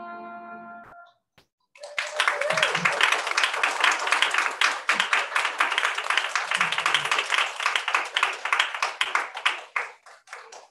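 The held final chord of a small string ensemble dies away about a second in. After a brief pause an audience applauds for about eight seconds, thinning to a few scattered claps near the end.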